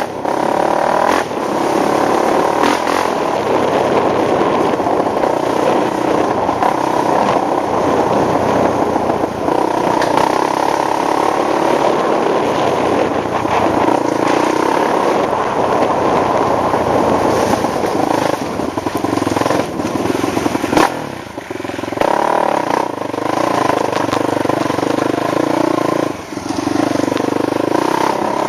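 ATV engine running under changing throttle while riding off-road, easing off briefly about two-thirds of the way through and again shortly after, with scattered knocks from the machine over rough ground.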